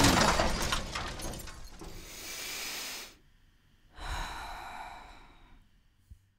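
A person breathing loudly, twice: a sudden loud breath that trails off over about three seconds, then a second, shorter breath about four seconds in.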